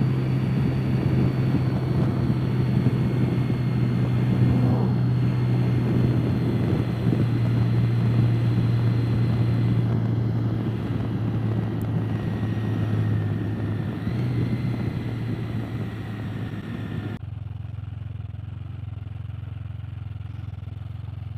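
Can-Am Spyder F3 Limited's three-cylinder engine running steadily on the road, with wind and road noise over its hum. About three-quarters of the way through, the wind noise drops away suddenly and a quieter engine hum carries on.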